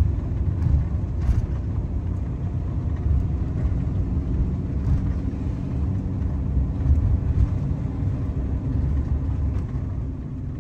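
Ram ProMaster camper van driving on a wet road: a steady low rumble of engine and tyres.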